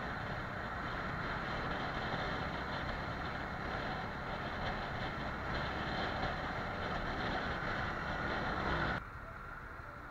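Motorcycle riding at speed, its engine running under steady wind and road noise. About nine seconds in the sound cuts abruptly to a quieter, steady traffic noise.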